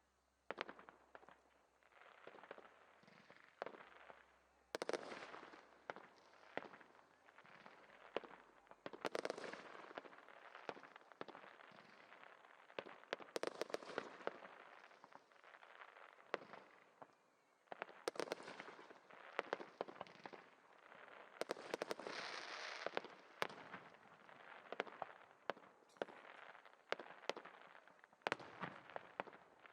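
Fireworks display: aerial shells bursting with sharp bangs and crackling. The bursts come in clusters every few seconds, the loudest about 5, 9, 13, 18 and 22 seconds in.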